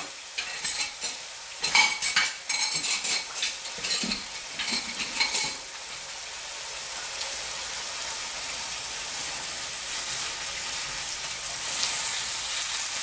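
Ribeye steak frying in a wok, a steady sizzle. Over the first five or so seconds there are quick clinks and clatters of kitchen utensils and dishes.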